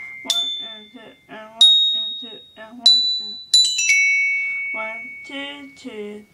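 Glockenspiel struck with mallets: single high ringing notes about a second apart, then a quick run of three notes, each left to ring and fade, with a voice alongside.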